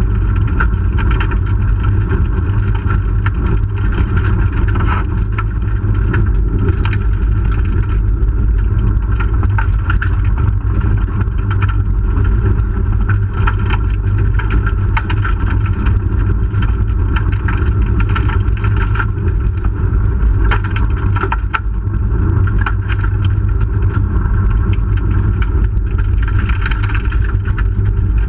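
Inside the cabin of a 1997 Hyundai Excel SOHC rally car driven hard on a gravel stage: the four-cylinder engine running under load over heavy tyre and road noise. Frequent short clicks and knocks of gravel striking the car's underside.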